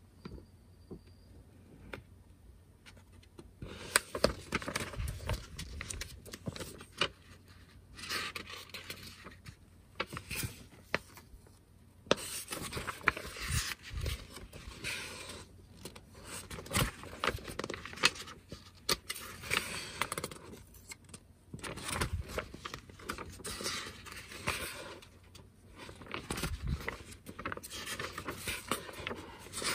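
Paper pages of a model kit's instruction booklet being handled and turned, with irregular rustling and crisp snaps of paper starting about four seconds in.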